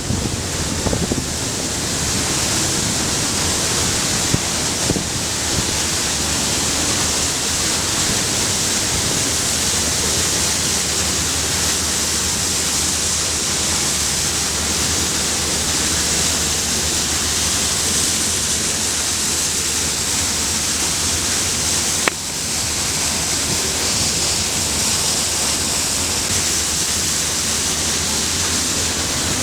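Steady, loud rushing of air driven by a VOD-40 megawatt-class axial mine ventilation fan, an unbroken even roar with a brief dip about 22 seconds in.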